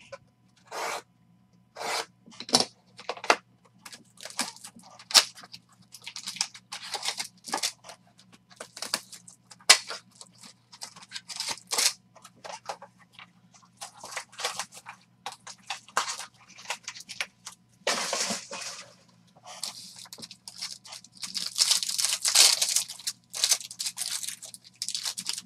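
Trading-card packs being opened by hand: a box cutter slitting the box, then plastic and foil pack wrappers torn and crinkled and cards handled, a long run of sharp crackles and rustles with longer crinkling stretches near the end. A faint steady low hum runs underneath.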